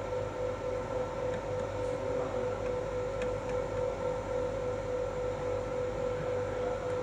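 Steady machine hum with a constant mid-pitched tone that does not change.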